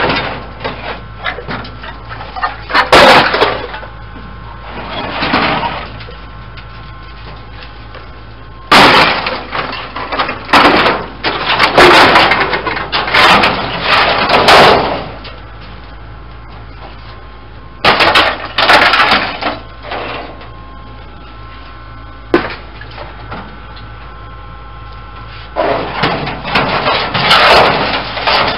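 Rusted sheet-metal body parts from a stripped 1963 Plymouth Fury clattering, banging and scraping against the steel bed of a 1966 Dodge D100 pickup as they are handled and moved about. The clatter comes in several loud bursts with quieter gaps, the longest in the middle, with a single knock a little later.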